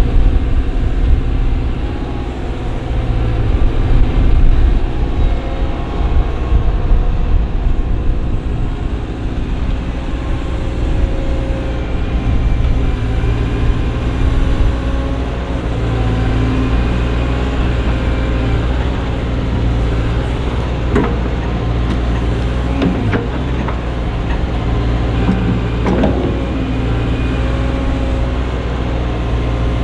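Diesel engine of a CAT M314F wheeled excavator running steadily while its hydraulic boom and attachment move, with a few knocks in the last third.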